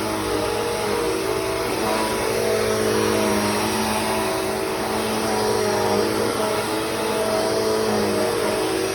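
Bissell CleanView 3536 bagless upright vacuum cleaner running steadily, its motor hum wavering slightly in pitch over a constant rush of airflow.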